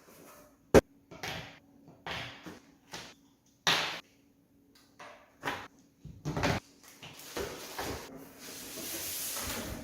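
Box and packaging being handled in an unboxing: a sharp click about a second in, then a string of short scrapes and rustles, and a longer rustling stretch near the end.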